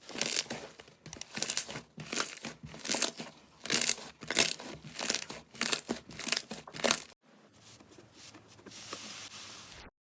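Slime being squeezed and pulled by hand, crackling and crinkling in repeated bursts, then a quieter rustle that cuts off suddenly near the end.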